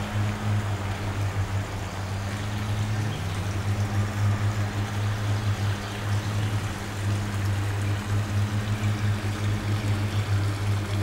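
Water running and trickling over a low stone weir, with a steady low hum underneath that shifts slightly in pitch about three seconds in.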